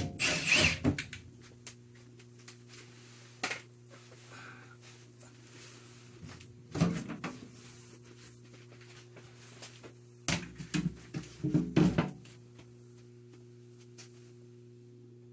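Scattered knocks and clatter of objects being handled, loudest right at the start, with a single knock a few seconds in, more around seven seconds, and a cluster of knocks between about ten and twelve seconds. A steady low hum sits beneath.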